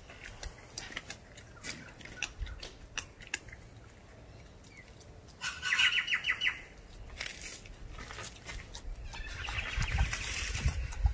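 German shepherd puppy chewing a raw chicken leg quarter: scattered wet clicks and crunches of teeth on meat and bone. A quick run of high chirps about five and a half seconds in is the loudest moment.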